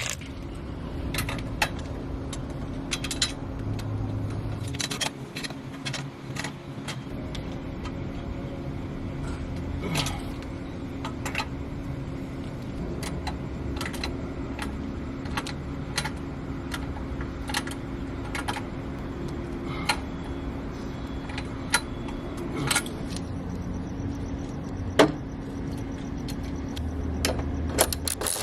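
Scattered sharp metallic clicks and clinks of hand tools and bolts being handled, over a steady low hum.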